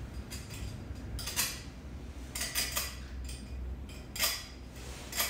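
Small metal plumbing fittings clinking and knocking together as they are handled and screwed together by hand, in scattered sharp taps with a quick cluster in the middle.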